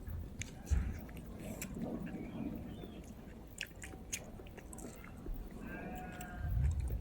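Close-up chewing and biting of food, with small wet mouth clicks scattered throughout and a low rumble swelling now and then.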